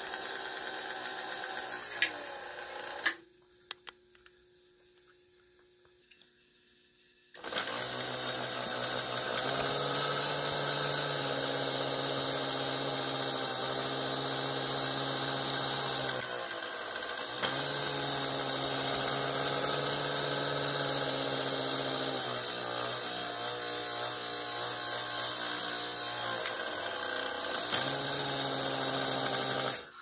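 Electric motor and all-metal gear train of an American Flyer sawmill accessory by Lionel whirring as it runs. It stops with a couple of clicks about three seconds in, starts again a few seconds later, and its pitch steps up and down as the mechanism works through its cycle, cutting off at the end.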